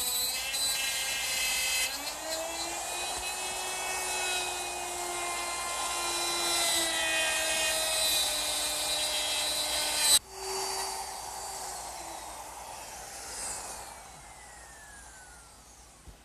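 Handheld router with a dovetail bit running as it cuts dovetails along a dovetail jig's template, its whine dipping and recovering under load. It is switched off about ten seconds in with a click, and the whine falls steadily in pitch as the motor spins down.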